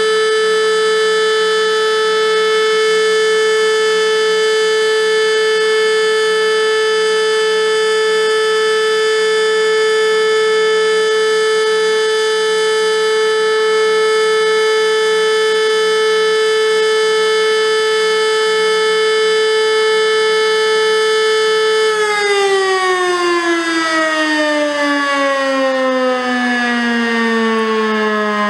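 Elektror E57 electromechanical civil-defence siren sounding a single steady tone, the long continuous tone used for the all-clear. About three-quarters of the way through it is switched off, and the pitch falls steadily as the rotor winds down.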